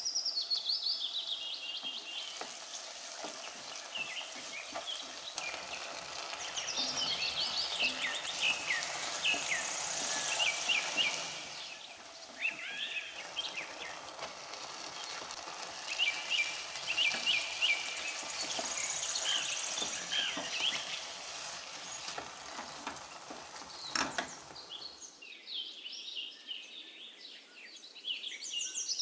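Chopped vegetables sizzling in a frying pan as they are stirred with a spoon, with birds chirping in the background. There is a single knock shortly before the sizzling stops near the end.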